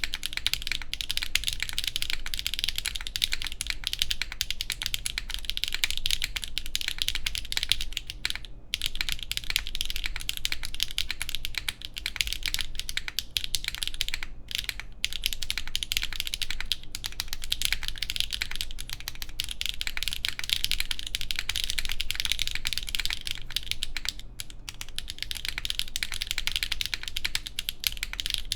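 Fast, continuous typing on a Geonworks F1-8X V2 mechanical keyboard with stock HMX Macchiato switches on a full aluminium plate and GMK keycaps, all case screws fitted. The clacking keystrokes pause briefly three times.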